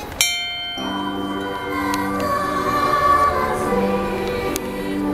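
A brass bell on an illuminated Christmas tree is struck once and rings briefly. Ringing it sets off recorded choral Christmas music, which starts less than a second later and plays on.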